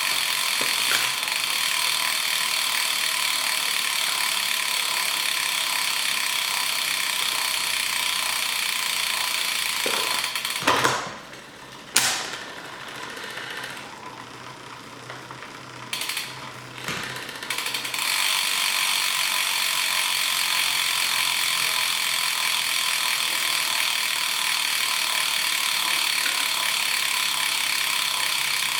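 Bicycle chain drivetrain spun by hand on a time-trial bike, the chain running steadily over the sprockets and through the derailleur while the gear-cable adjustment is checked. It stops about eleven seconds in with a couple of sharp clicks, goes quiet apart from a few small clicks, then runs again steadily from about eighteen seconds.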